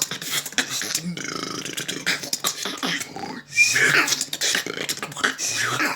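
Vocal beatboxing: a dense, rapid run of mouth-made percussive hits and clicks mixed with short pitched vocal sounds. It breaks off for a moment a little past the middle, then resumes with a loud hit.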